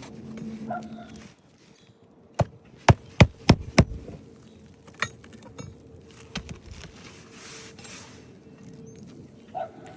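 Five sharp knocks in quick succession about two and a half seconds in, then a single knock a second later, with faint scraping and clicks in between.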